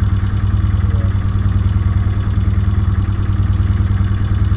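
A narrowboat's inboard engine running steadily as the boat cruises under power, a low, even beat with no change in speed.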